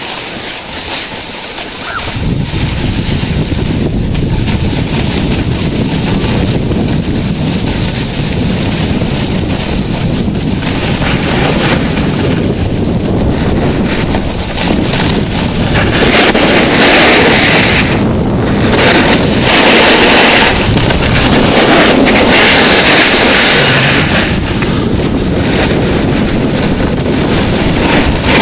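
Wind buffeting the microphone while riding fast down a groomed ski slope, together with the hiss of snow sliding under the rider. The rush is steady, and it turns louder and hissier about halfway through.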